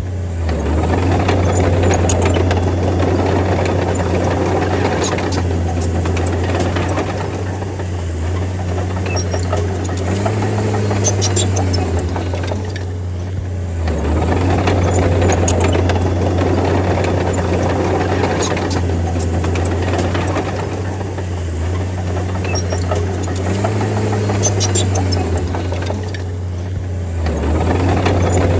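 Bulldozer's diesel engine working steadily, its note easing off briefly about halfway through and again near the end before picking back up, with scattered sharp clanks over it.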